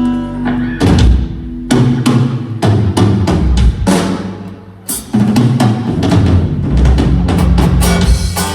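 Live rock band playing loud during a sound check: drum kit hits with bass kick and snare over low sustained bass notes. The playing thins out about four seconds in and comes back in hard about a second later.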